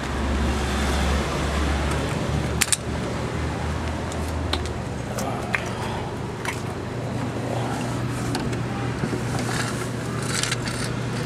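Scattered sharp metal clinks and taps of hand tools being handled under a car, over a steady low hum.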